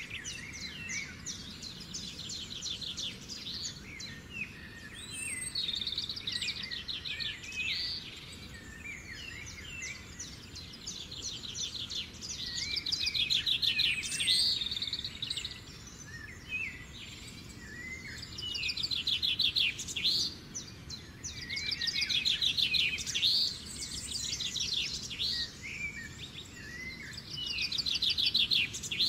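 Birds chirping and singing: rapid trills and short up-and-down calls, swelling louder every few seconds over a faint steady background noise.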